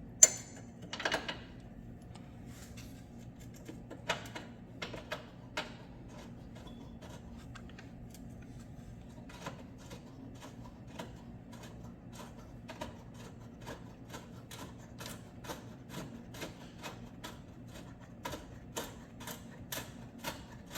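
A hand ratchet clicking as bolts are worked on the engine's motor mount, in a steady run of short clicks about two to three a second through the second half. A sharp metal clank comes just after the start.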